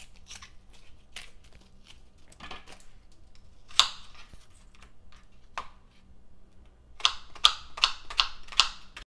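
Chef's knife chopping an onion on a plastic cutting board: scattered knife taps, then a quick run of about six chops, some four a second, near the end.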